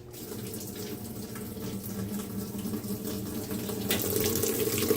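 Water rushing into a GE top-load washing machine's tub through its fill valves at the start of a wash cycle, over a steady low hum, growing gradually louder.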